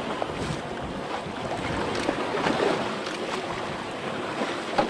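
A boat running through choppy sea: water rushing and splashing, with wind buffeting the microphone. A sharp knock near the end.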